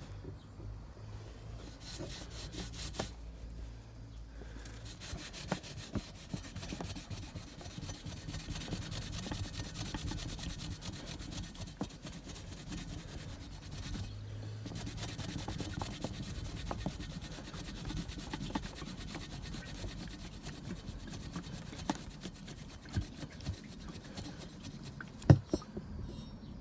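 A cloth rag rubbed back and forth along a rusty steel bicycle frame tube, scrubbing off old sticker glue with petrol. A few sharp knocks, the loudest near the end.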